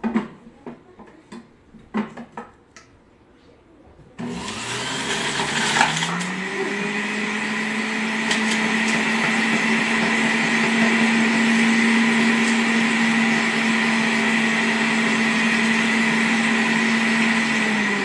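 Electric centrifugal juicer with a knock or two as a potato is loaded. About four seconds in the motor switches on and spins up to a steady whine. It then runs at full speed as the potato is pressed down the feed chute onto the spinning grater disc, and starts winding down at the very end.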